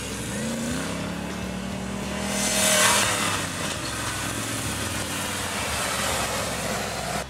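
Off-road tube-frame buggy's engine revving up as it drives through loose sand, then running under load. A louder rush of engine and spinning tyres comes about three seconds in as it passes close by.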